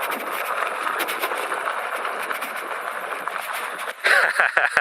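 Steady rush of wind and tyre noise from an electric bike being ridden along a dirt trail, with no clear motor whine. About four seconds in, a louder, choppier burst breaks in.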